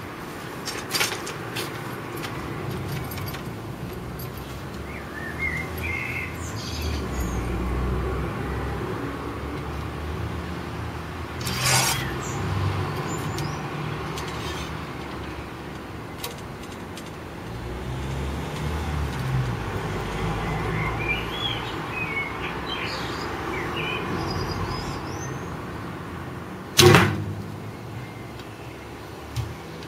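A recurve bow is shot once near the end: a single sharp snap as the string is released. Birds chirp at times over a steady low background rumble, and there is a brief noise about twelve seconds in.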